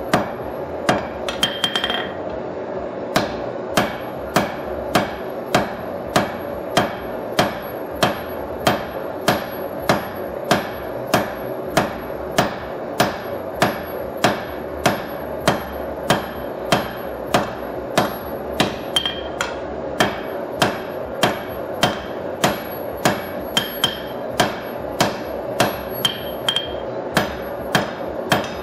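Hand hammer striking red-hot steel on an anvil while forging a knife blank: steady, ringing blows about two a second, with a quick flurry and a short pause about two seconds in, over a steady background noise.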